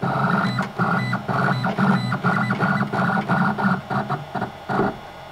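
A Monoprice 3D printer's stepper motor buzzes in short, rapid pulses as the control dial is turned to close the gap between the nozzle and the build plate during bed levelling. The pulses stop about four seconds in, followed by a few light clicks.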